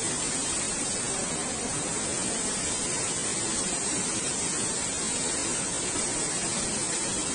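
Swollen, muddy river in flood rushing and churning through its channel, a steady, unbroken noise of fast water.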